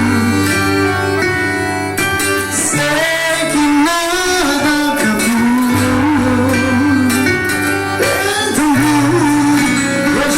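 Forró band playing: a voice singing over held bass notes and instrumental accompaniment.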